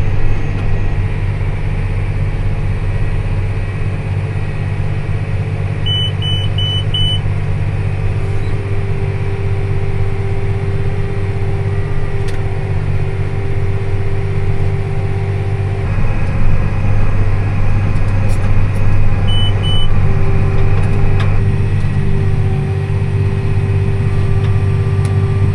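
Tractor engine running steadily while pulling a round baler through a hay field, a constant low drone. Short electronic beeps sound four times about six seconds in and twice more near twenty seconds.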